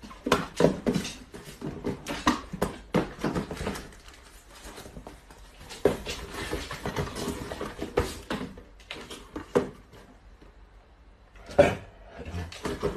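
Small cardboard boxes being handled and packed into a cardboard carton: irregular knocks, scrapes and rustles of cardboard, with a quieter stretch and then one louder, sharper sound near the end.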